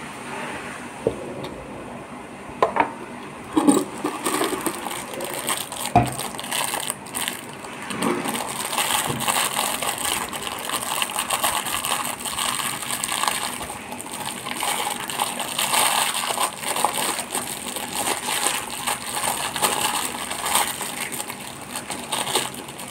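A few sharp knocks and clicks in the first six seconds as a plastic shaker bottle and its lid are handled, then steady crinkling of a clear plastic wrapper as it is worked off a metal wire whisk ball.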